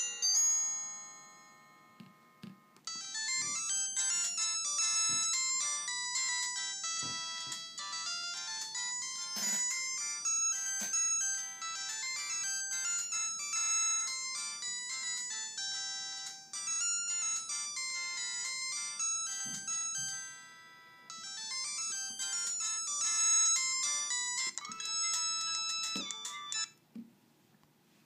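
Built-in polyphonic ringtones playing from the small speaker of a Samsung SGH-B270 (C270) flip phone, one tune after another. One tune stops just after the start. The next begins about three seconds in and plays for about eighteen seconds. Another follows and stops about a second before the end.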